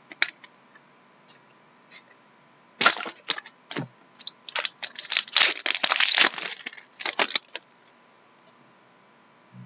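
Crinkling and crackling of a trading-card pack wrapper being handled and torn open, in a short burst about three seconds in and a longer stretch from about four and a half to seven and a half seconds.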